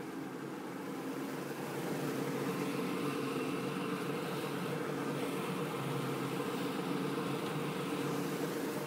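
Twin outboard motors running with the boat under way: a steady engine drone that grows a little louder about two seconds in.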